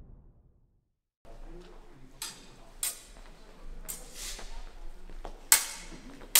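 Intro music fades out, and after a short silence steel sidesword blades clink against each other in several sharp strikes, the loudest about five and a half seconds in.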